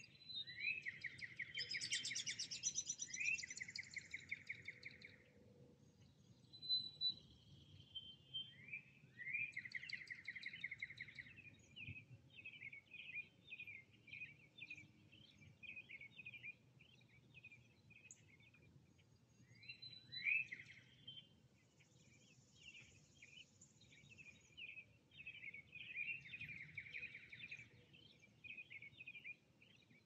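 Songbirds singing and calling in spring woodland. Trilled songs, each opening with a quick rising note, come several times and are loudest near the start. A run of rapid short chirps carries through the second half, over a faint steady background hush.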